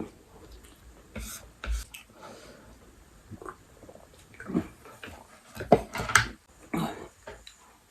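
Close-up eating sounds of a mukbang: chewing and mouth noises, with a few sharp clicks early on and louder bursts of eating noise in the second half.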